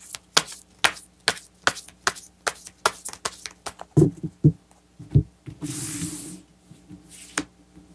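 Tarot cards handled and shuffled, a run of sharp clicks and a few duller knocks, then the deck is swept out into a fan across the cloth-covered table with a brief rushing slide just before six seconds in.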